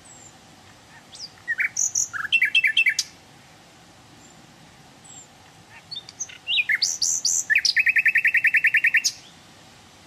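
A songbird singing two phrases of quick, varied notes, the first about a second in and the second from about the middle. The second phrase ends in a fast run of the same note repeated about a dozen times a second for a second and a half.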